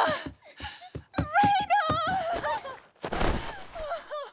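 A person crying hard: sobbing and wailing in a high, wavering voice broken by short catches of breath, with a ragged, breathy sob about three seconds in.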